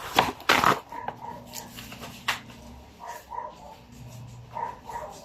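A household pet's short, sharp calls: two loud ones in the first second, then a few fainter ones.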